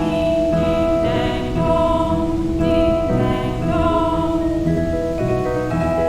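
Calm background music of slow, held, layered notes, with a wavering, singing-like melody line above them.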